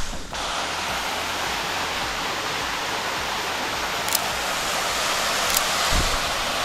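Waterfall rushing steadily, an even splashing roar of falling water.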